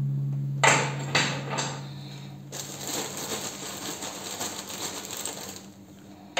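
Pieces of dry coral rubble dropped by hand into an empty glass aquarium's filter compartment, clattering onto ceramic filter rings and the glass. A few sharp clacks come in the first two seconds, then a softer, longer rattle.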